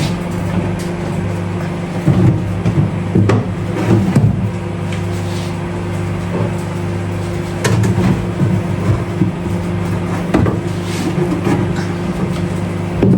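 Intermittent knocks and clunks of kitchen items being handled, over a steady low hum.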